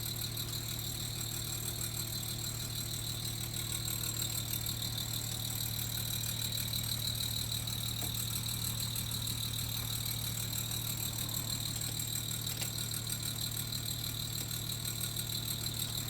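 Panasonic CU-EX280D air-conditioner outdoor unit running in cleaning mode after cooling. It gives a steady low hum with a high-pitched whine over it. The owner calls the noise strange and loud and is unsure whether it is normal.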